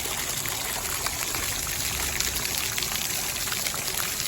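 Fountain water falling and splashing in a steady stream.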